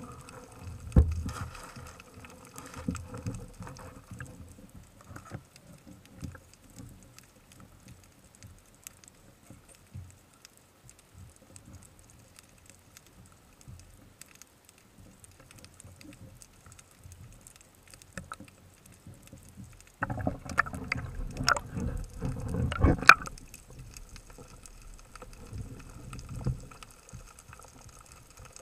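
Muffled water noise heard through an underwater camera housing, with scattered knocks and clicks from spearfishing gear being handled. About twenty seconds in there is a louder stretch of rushing water and knocking lasting a few seconds.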